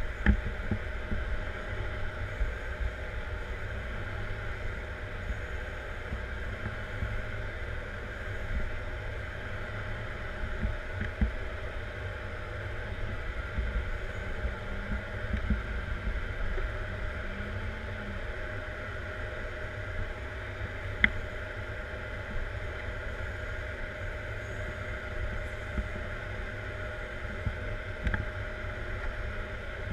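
Caterpillar 140M Series 2 motor grader running steadily while grading dirt, heard from inside the cab: a low engine drone with a steady higher hum over it. A few sharp clicks or knocks break in, the loudest about two-thirds of the way in.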